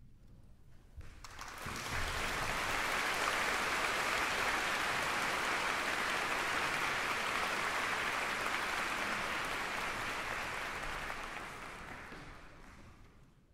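Concert-hall audience applauding at the end of a wind band piece. The clapping builds in about a second and a half in, holds steady, and fades out near the end.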